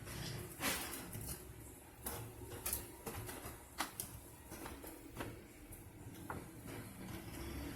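Irregular light clicks and taps from hands and small tools working on a flat-screen television's internals, over a low steady rumble.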